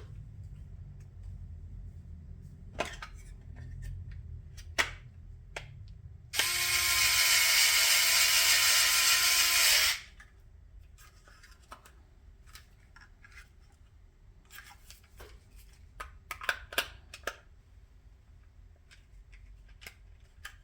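Electric drill-driver running steadily for about three and a half seconds, driving a small stainless steel screw, with sharp clicks of parts and screws being handled before and after it.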